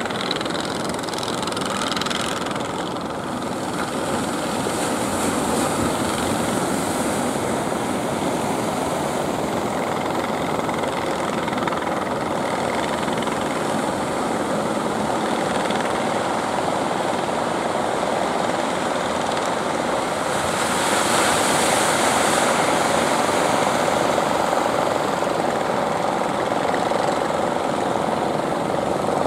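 Engines of several fishing boats and outrigger jukung running steadily as a continuous drone, mixed with surf washing onto the shore. A louder wave hiss swells about two-thirds of the way through.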